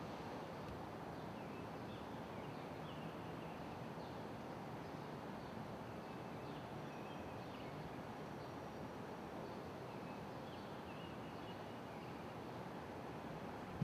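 Outdoor ambience: a steady low hum of background noise, with short high bird chirps repeated through it.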